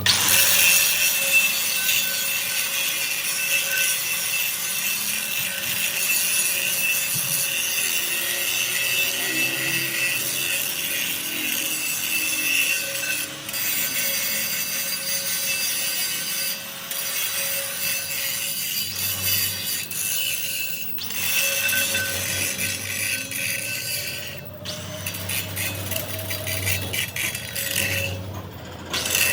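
Power tool working on a steel truck rim: a steady motor whine under a harsh scraping hiss, cutting out briefly a few times.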